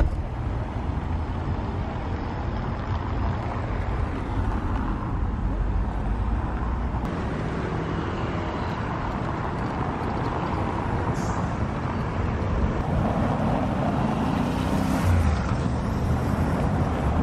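City street traffic: cars, a bus and a motorbike passing over cobblestones, a steady rumble of engines and tyres that swells and eases as vehicles go by.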